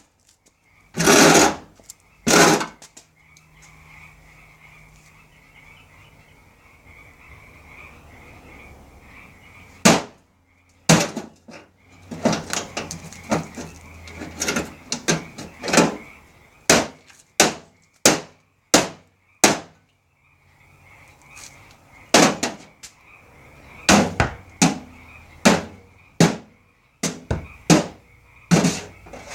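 Repeated hammer blows on a hard object: a few heavy strikes early on, then runs of sharp hits about one a second. Between the runs a faint steady high tone and a low hum sound.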